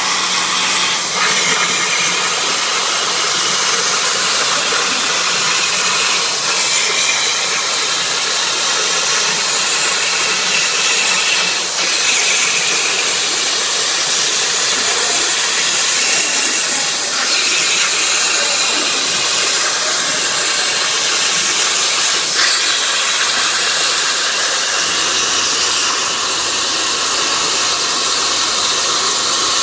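CNC plasma cutter hissing steadily as the torch cuts, with a faint tick about every five seconds.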